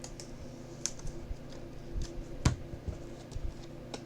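Hands handling trading cards and packs: scattered light clicks and taps, with the sharpest tap about two and a half seconds in, over a low steady hum.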